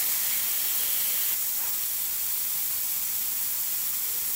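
Compressed air hissing steadily out of a car tyre as it is deflated for a puncture repair, cutting off suddenly.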